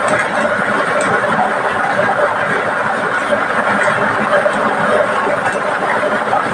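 Plastic lottery balls clattering continuously as they tumble inside a clear draw machine's drum, mixing before the next ball is drawn.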